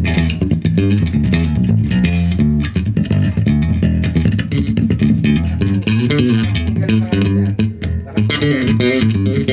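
Elegee Mini Datu electric bass with Elegee Supremo pickups, both pickups on, played through an amp: a fast run of plucked notes with a crisp attack on each.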